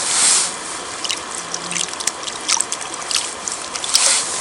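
River water being scooped up and dripping and trickling into a bowl of dry groundbait, to wet the mix. A short splash at the start and another about four seconds in, with scattered drips between.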